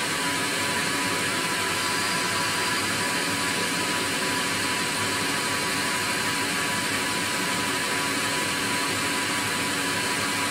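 Tormach 15L Slant Pro CNC lathe running with its spindle turning, a steady whir with several constant whining tones, while a grooving tool faces off the end of a small titanium rod.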